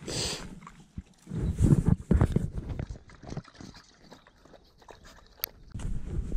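A Samoyed lapping water from a small bowl in irregular bouts of short wet strokes. Near the end a steady wind rush on the microphone takes over.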